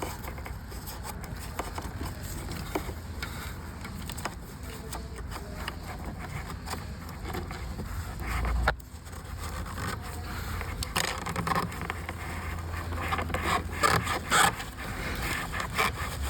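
Scraping and rubbing of a cloth rag being worked and pulled out of a turbocharger's outlet, with scattered light clicks of handling over a steady low hum. The scraping comes thicker in the last few seconds. The rag was what blocked the turbo outlet and kept the engine from starting.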